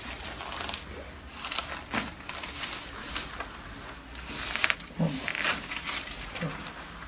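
Rustling and handling noise of a patient being positioned on the table for a chiropractic adjustment, with a few faint low grunts or breaths. At the very end comes a single sharp crack.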